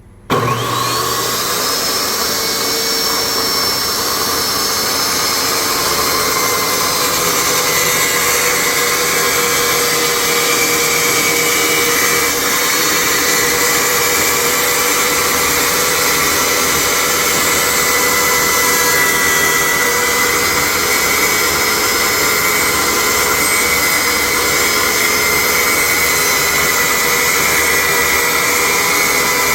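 Ryobi table saw switched on about a third of a second in, its motor whine rising as the blade spins up, then running steadily at full speed.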